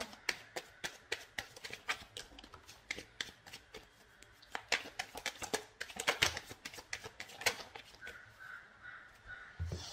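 A deck of tarot cards being shuffled by hand, a rapid, irregular run of papery card clicks and flicks, with a low thump near the end.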